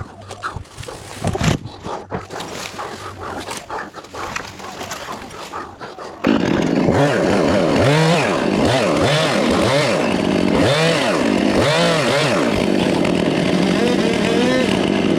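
A few seconds of scattered knocks and rustling, then a chainsaw comes in loudly about six seconds in. It runs on, revving up and down again and again.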